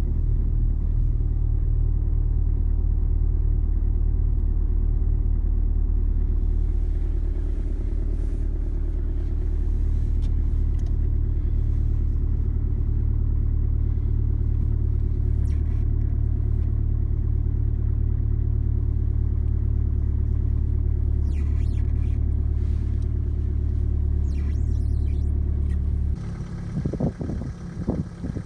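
2009 BMW 318d's four-cylinder turbodiesel idling cold at about 1000 rpm after a night at around -18 °C, steady and heard from inside the cabin. Near the end it is heard from outside at the exhaust pipe instead, quieter and more uneven.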